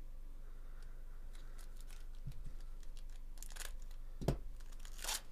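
Foil wrapper of a 2024 Bowman Chrome baseball card pack crinkling and being torn open by hand, with two sharp tearing rips about three and a half seconds in and again near the end. A single dull thump a little after four seconds in is the loudest sound.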